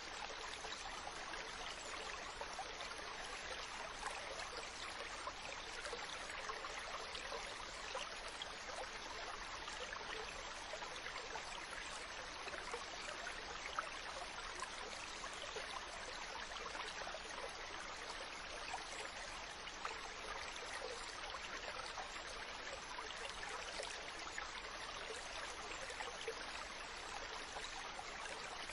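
A small stream running steadily, with a constant burble and many small trickles and splashes.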